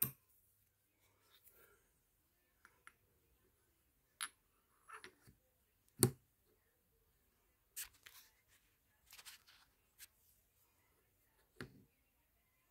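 Metal parts being handled: a BT30 toolholder and its tapered mating part give a few scattered light clicks and taps, the sharpest about six seconds in.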